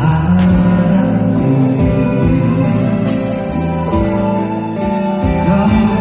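Small live band playing a song: strummed acoustic guitars, electric bass, keyboard and a shaken tambourine, with a steady beat.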